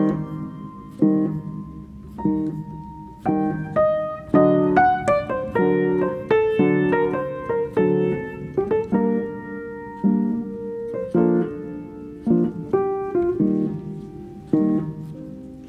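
Background piano music: single struck notes and chords, a few a second, each ringing and dying away.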